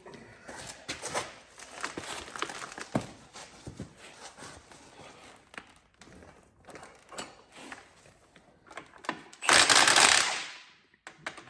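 Shop clatter of engine parts and tools being handled: scattered light metallic clicks, knocks and rattles. Near the end comes a loud rushing noise lasting about a second and a half.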